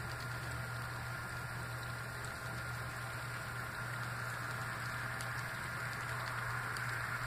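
Steady outdoor background hiss with a low, even hum underneath; no bird calls stand out.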